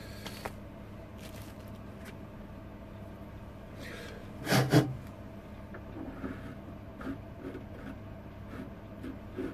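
Handling noise and small clicks as a pickup's metal output jack, on a white cable, is worked into a hole drilled in the side of an oud, with a loud double knock about four and a half seconds in. A steady low hum runs underneath.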